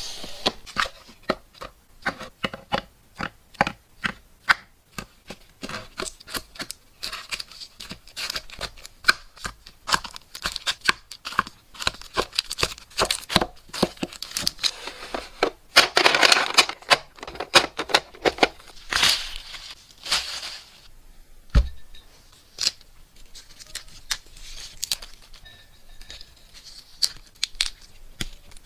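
Close-up handling sounds from desk repair and decorating work: quick runs of taps and clicks, a few longer noisy tearing strokes around the middle, and one dull thump a little later.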